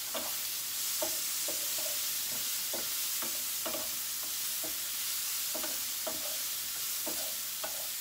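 Sliced mushrooms sizzling in a frying pan on the stove. A utensil scrapes and stirs them in short strokes, about two a second.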